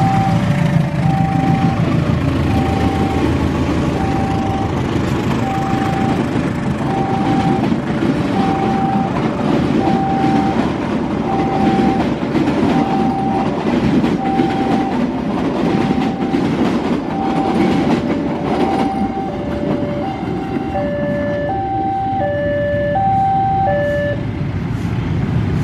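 A diesel-hauled passenger train, a CC 201 diesel-electric locomotive and its coaches, rumbling past with wheel clatter. Over it a level-crossing warning alarm chimes a steady alternating two-tone ding-dong, about once a second, and from about three quarters of the way in a second, higher-pitched two-tone chime joins.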